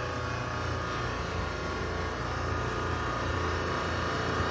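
Supermarket refrigeration compressor rack running: the semi-hermetic compressors still on line give a steady, even machine hum.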